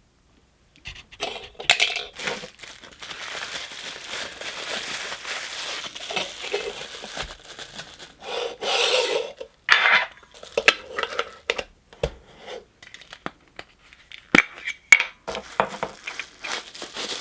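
Handling of Funko Soda collectible cans and their packaging: metal clinks and scrapes, rustling and crinkling of wrapping, and a few sharp knocks near the end.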